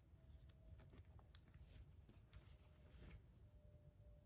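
Near silence with a few faint, scattered clicks and light handling noises.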